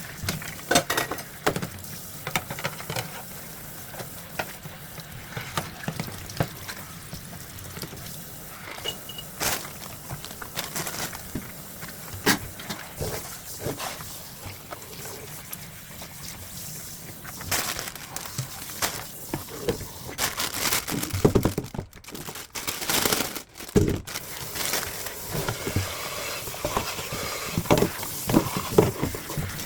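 Dishes and utensils being washed by hand in a sink: irregular clinks and knocks of crockery and cutlery, busier in the second half.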